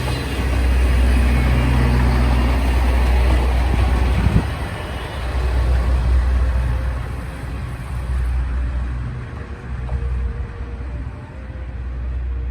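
Kiro 47 'Iyonada Monogatari' diesel train passing with a steady low rumble; the sound thins out and fades as it moves away in the second half.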